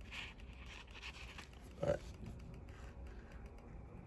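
Faint rustling of a paper towel under fingers handling a small plastic part, with one brief louder tap about two seconds in.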